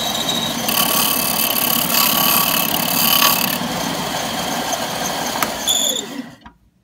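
Bench belt-and-disc sander running while a brass .30-06 casing pen body is held to it to smooth a rough solder joint; the sound turns harsher for a few seconds in the first half. Near the end the motor is switched off and winds down with a falling hum.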